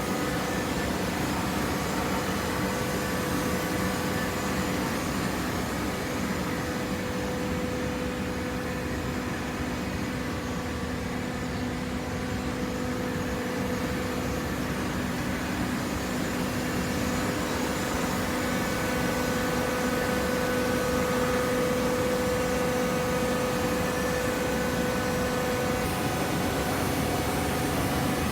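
Hydraulic vertical paper baler running, a steady machine hum with a whine. The whine fades briefly about halfway and returns slightly louder.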